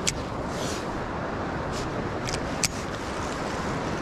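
Steady rush of flowing creek water, with a few sharp clicks: one right at the start and two close together about two and a half seconds in.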